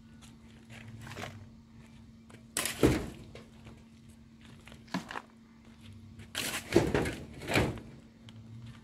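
Soil dropped into the bed of a homemade 1/8-scale RC dump truck in four separate loads, each a sudden thud with scattering dirt. The loudest come about three seconds in and near seven seconds.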